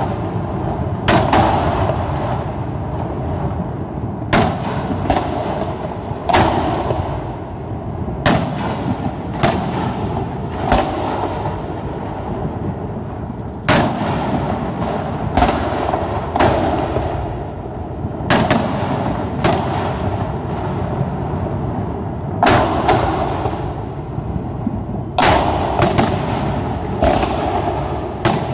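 Aerial firework shells bursting overhead: about twenty sharp bangs at uneven intervals, a second or two apart and sometimes in quick pairs, each trailing off in echoes over a steady background hiss.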